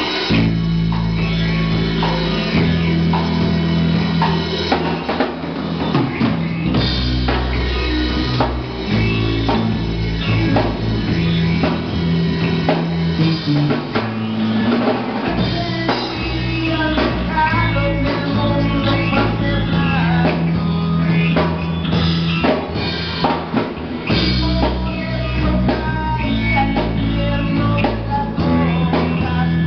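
Live rock band playing through amplifiers: electric guitar over a drum kit with a steady kick drum and low bass.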